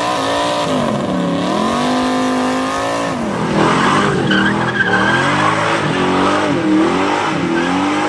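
Car engine revving up and down several times while the rear tyres spin in a burnout, the tyres squealing from about three and a half seconds in as the revving goes on.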